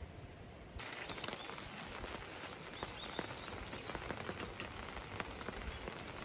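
Rain falling, with many scattered drops pattering, starting abruptly about a second in; a bird chirps a few times over it.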